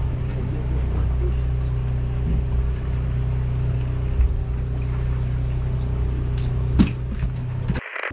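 Boat engine running steadily with a low hum. There is a sharp click a little before the end, and then the hum cuts off abruptly.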